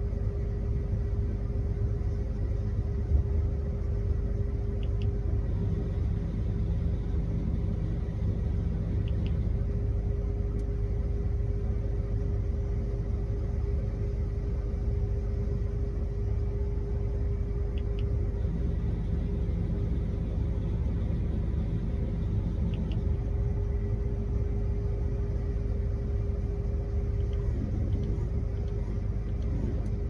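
Combine harvester running steadily, heard from inside its cab, while the unloading auger empties grain into a field bin: a steady low rumble with a constant hum.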